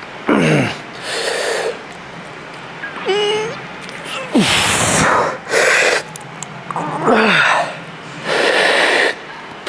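A man breathing hard while lifting: about seven forceful exhalations and short strained grunts, a second or so apart, some with a falling groan, the effort sounds of a set of dumbbell curls pushed toward failure.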